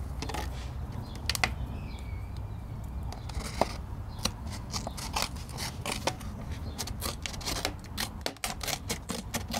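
Scissors cutting through a clear plastic 2-liter soda bottle to cut it in half: a run of sharp snips and crackles of the thin plastic, coming closer together in the last few seconds.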